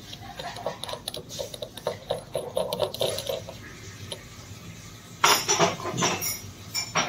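Chrome and brass parts of a Jaquar basin mixer's cartridge assembly clicking and scraping in the hands as the cartridge is worked loose from its threaded housing. Louder metallic clanks come from about five seconds in.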